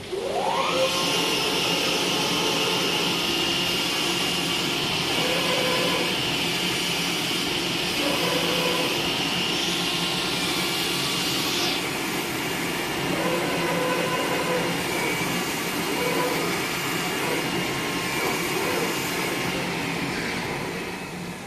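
CNC automatic knife cutting machine running: a steady whooshing air-suction noise, typical of the vacuum blower that holds material down on the cutting table. It spins up with a rising whine in the first second, and a high hiss drops away about halfway through.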